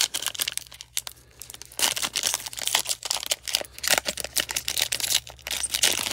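Foil wrapper of a 2021-22 Panini Donruss basketball card pack being torn open and crinkled by hands. A little crinkling at the start, then louder, irregular tearing and crackling of the foil from about two seconds in.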